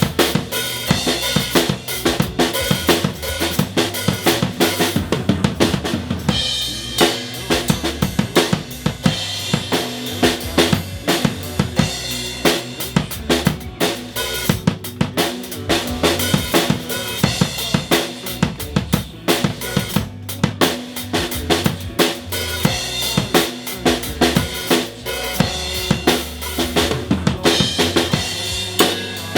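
Drum kit played through a rock song: dense kick drum, snare and cymbal hits.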